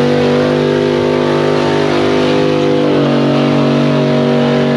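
Lifted pickup truck's engine held at high revs at full throttle while pulling in a truck tug of war, its tyres spinning and smoking. The pitch stays steady and steps up slightly about three seconds in.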